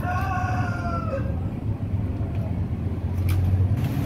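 A rooster crowing, the drawn-out call ending with a falling note about a second in, over a steady low hum.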